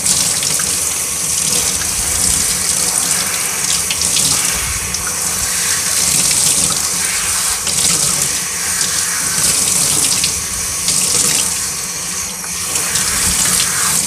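Kitchen faucet spray running over a vacuum filter held under the stream and splashing into the sink, a steady hiss that wavers in loudness as the filter is turned in the water. The filter is being rinsed of dish soap until the water runs clear.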